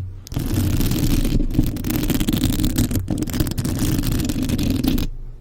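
Fingernails scratching rapidly and continuously on a surface close to the microphone, a dense rough rasping that stops about five seconds in.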